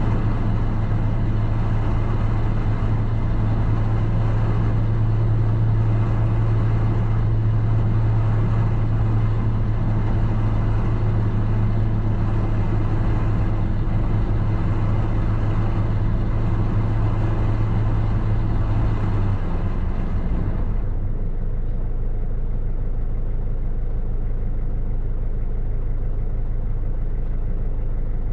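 Diesel engine of a recovery truck running steadily with a strong low hum; about twenty seconds in the higher part of the sound cuts off and the engine settles to a lower, quieter idle.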